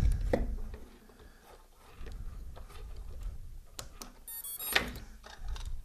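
Hands plugging a battery lead into a micro quadcopter's wiring: small clicks and rustling of wires and connector, with a brief high electronic chirp just over four seconds in.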